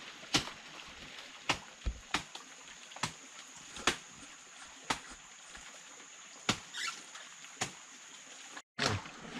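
Scattered sharp snaps and knocks, roughly one a second, of someone clambering through tangled deadwood and vines in a shallow forest creek, over a steady high-pitched hiss.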